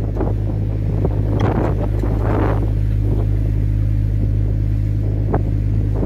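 Fishing boat's engine running with a steady low hum, with two rushes of wind and wave wash swelling over it in the first three seconds.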